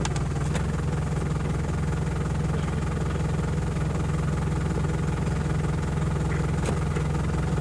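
Steady, low engine drone with a constant hum of evenly spaced tones, cutting in abruptly at the start.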